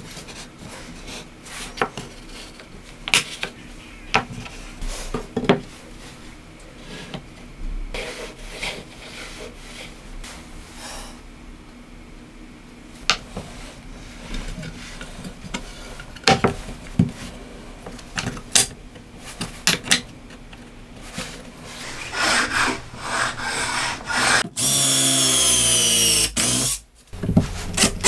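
Wooden parts handled and set down on a workbench, a scattering of knocks and clicks. Near the end a cordless drill-driver drives a screw into the wood, its whine sliding in pitch.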